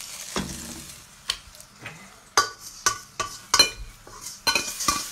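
Frying-pan sizzle that dies down about half a second in, then a run of sharp clinks and scrapes of a utensil against the pan and a container as the seared chicken and onions are spooned out, coming faster near the end.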